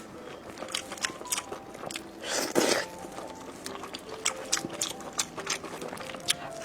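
Close-up eating sounds: biting into and chewing crunchy fried skewers, with scattered crisp crunches and one louder crunch about two and a half seconds in.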